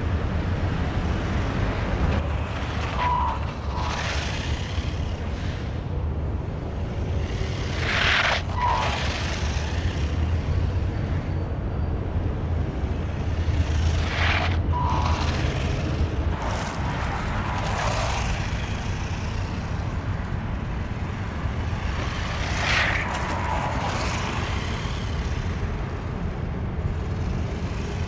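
WLtoys 144001 1/14-scale electric RC buggy being driven in fast passes over brick paving. Its brushed motor and gears give a whine that rises and then drops in pitch as it goes by, several times, over a steady low rumble.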